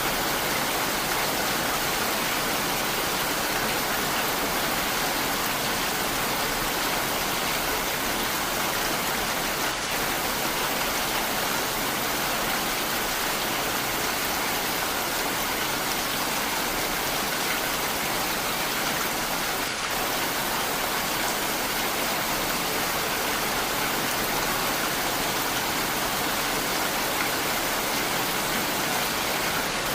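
Heavy rain falling steadily, an even hiss of rainfall with a brief slight dip in level about every ten seconds.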